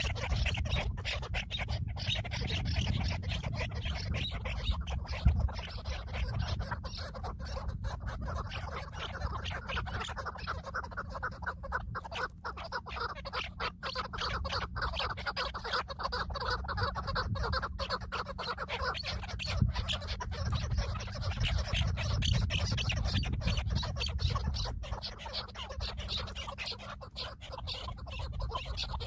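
Harsh bird calls over continual rustling, clicking handling noise and a low rumble.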